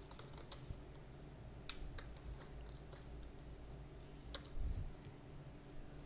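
Faint, scattered computer keyboard keystrokes and clicks, with a soft low thump about four and a half seconds in.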